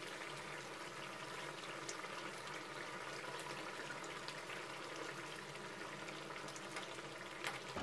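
Spiced fish-curry gravy boiling in a steel kadai: a steady bubbling hiss with small popping ticks, the water just come up to the boil as the fried fish pieces go in.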